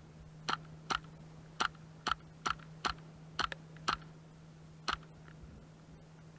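Airsoft gun firing about ten single shots in a little over four seconds, each a sharp snap.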